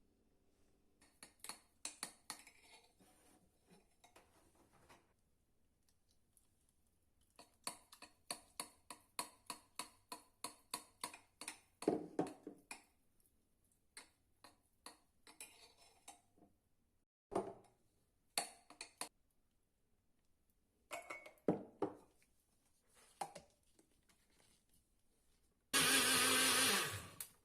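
A spoon stirring pancake batter in a bowl, with quick repeated clinks and taps of the spoon against the bowl and a few scattered knocks. Near the end an electric blender runs for under two seconds.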